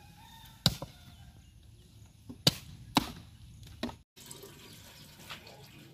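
Axe chopping firewood: four sharp blows over the first four seconds, three of them loud. After that, water being poured from a metal bowl into a clay cooking pot, a faint trickle.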